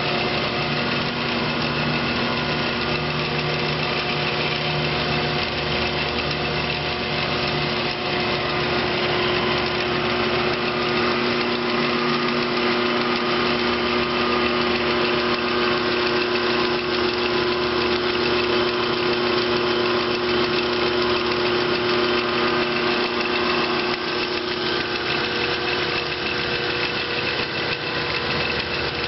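Rebuilt old-style 25 lb Little Giant power hammer running idle: its electric motor drives the V-belts and flywheel pulley in a steady, smooth hum, with no blows of the ram. The machine has just had all of its moving parts rebuilt or replaced.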